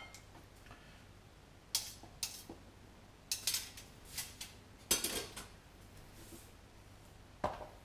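Kitchen utensils and dishes being handled: metal tongs and crockery clinking and clattering in a series of separate knocks, the loudest about five seconds in.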